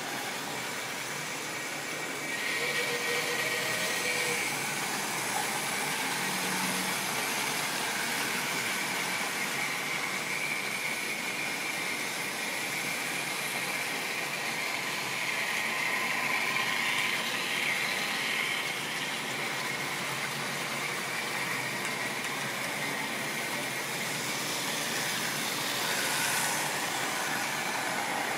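OO-gauge model trains running on a layout: the steady whine of a locomotive's electric motor over the rattle of wagon wheels on the track, swelling slightly a few times as the train passes close.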